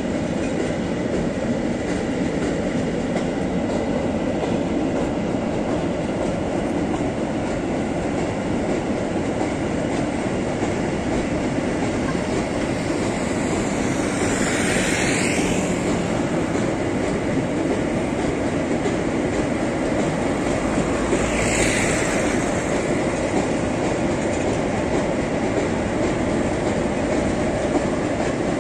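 Freight train of loaded car-carrier wagons rolling steadily across a high viaduct: a continuous rumble with some clickety-clack of the wheels. Two brief swells of higher hiss come through, about 14 and 21 seconds in.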